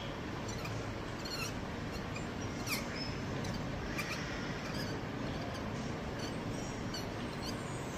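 Faint scattered squeaks and ticks of circlip-plier tips turning a threaded part inside an airgun regulator body, over a steady background hiss.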